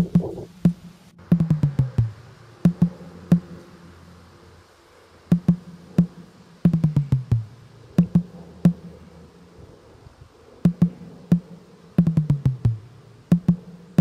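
Background music built on an electronic drum pattern: sharp clicks and low drum hits, with a run of strokes falling in pitch that repeats about every five seconds.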